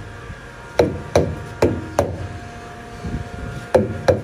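Sharp knocks with a short ringing tail: four in an even run, each about 0.4 s apart, a pause, then two more near the end.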